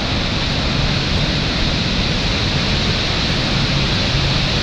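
Twin Falls on the South Fork Snoqualmie River, swollen by heavy rain, giving a loud, steady rush of falling water.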